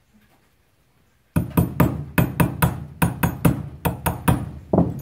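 A small hammer tapping a pin into an SS12 shotgun's metal trigger housing: a quick run of about sixteen sharp taps, four to five a second, starting about a second in. The pin is being driven home to hold the shotgun's own hammer in place.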